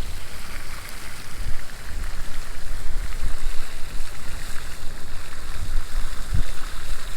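Strong wind buffeting the microphone: an uneven low rumble with a steady rushing hiss over it.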